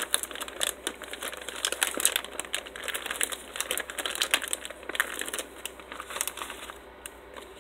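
Plastic mailer bag crinkling in a rapid, irregular crackle as hands hold it open and rummage inside; the crinkling dies away near the end.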